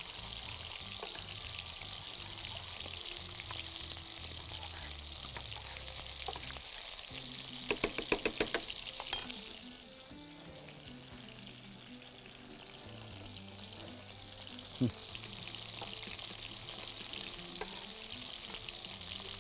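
Chicken skin sizzling as it fries in its own fat in a pan, a steady hiss that turns quieter about ten seconds in. About eight seconds in, a metal spoon clinks rapidly against a saucepan about eight times, and a single clink comes near fifteen seconds.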